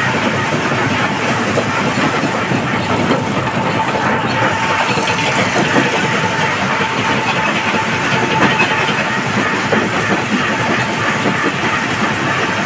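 Stone crushing plant running: the jaw crusher and belt conveyors working, with crushed stone clattering off the conveyor into a washing tank. It makes a loud, dense, steady rattle with a faint machine hum underneath.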